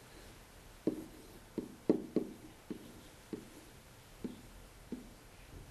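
Pen or stylus tapping on a hard writing surface while a word is handwritten: about eight short, sharp taps, irregularly spaced, with the loudest about two seconds in.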